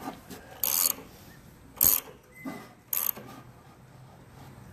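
Ratchet wrench turning a freshly built air-cooled VW flat-four over by hand: three short bursts of ratchet clicking about a second apart, the middle one the loudest. The engine is being rotated to line the distributor rotor up with the number one wire.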